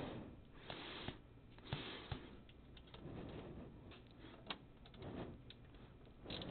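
Faint clicks and small scrapes of a 3 mm Allen wrench being worked in the set screw of a pinsetter's slip-clutch gear wheel, with a few short rushing noises of hands handling the parts.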